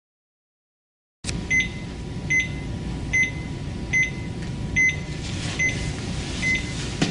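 Silent at first; then, from about a second in, a cardiac monitor's heartbeat beep sounds: a short high beep repeating evenly a little faster than once a second, one per detected heartbeat, over a steady room hum.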